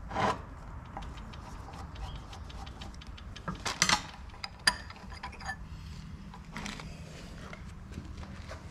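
Hand screwdriver backing small screws out of a metal drill plate on a transmission valve body, with light metal clicks and clinks as the plate is lifted off and set down; the clicks come scattered, a few bunched together about halfway through.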